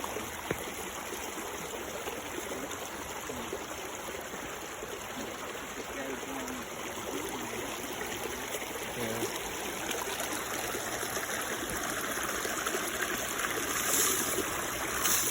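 Creek water running over rocks: a steady rush of flowing water that grows louder and brighter about two-thirds of the way through.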